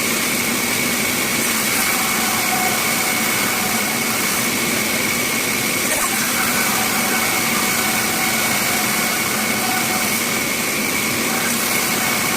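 Bandsaw running steadily: a constant machine noise with a steady high whine over it.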